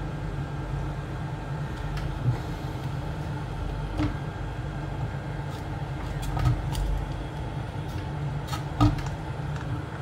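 Hot-air rework gun blowing steadily at the resin that holds a detector's failed speaker, a plain even rush with a low hum under it. A few sharp clicks of a metal pick prying at the plastic housing break through, the loudest near the end.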